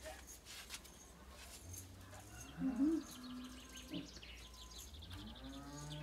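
A cow mooing twice: a moo that rises and holds about two and a half seconds in, and a longer one starting near the end. Small birds chirp faintly.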